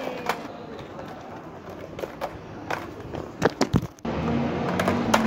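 Skateboard deck and wheels clacking on stone paving in a few scattered sharp knocks during attempted ollies and shove-its. Near the end a cluster of loud knocks and a heavy thump come from the phone being handled, then the sound cuts off suddenly and starts again.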